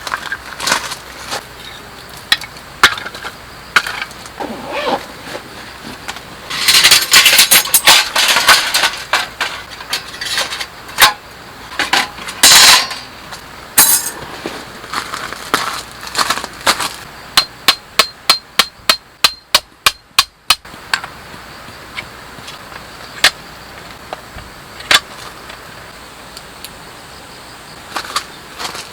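A series of sharp knocks and clinks, with a couple of short clattering bursts and, past the middle, a quick run of about a dozen clicks that stops abruptly.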